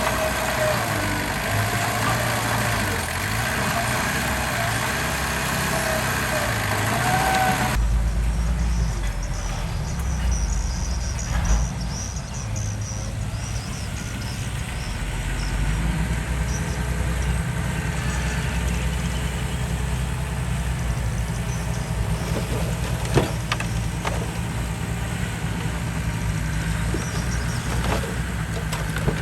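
Heavy diesel earthmoving machinery running continuously. About eight seconds in, the sound changes abruptly from a brighter engine note with a wavering whine to a deeper low engine rumble. A few short knocks follow later.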